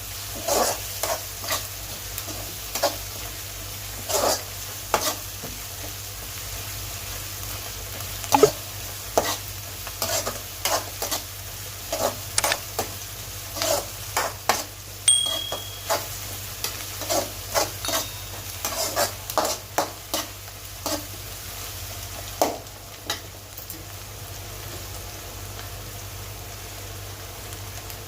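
Mutton brain frying in a pan with a steady sizzle, while a spatula stirs and scrapes against the pan in irregular strokes. The stirring stops a few seconds before the end, leaving only the sizzle.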